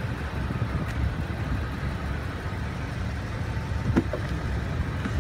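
Steady low rumble of a motor vehicle running, with one brief knock about four seconds in.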